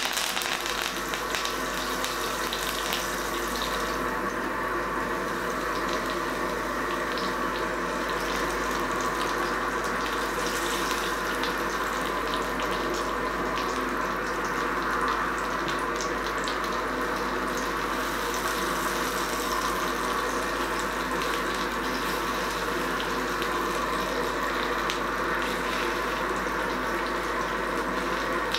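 Hot oil sizzling and crackling steadily in a cast-iron skillet as a garlic clove, thyme sprigs and quartered button mushrooms fry in it.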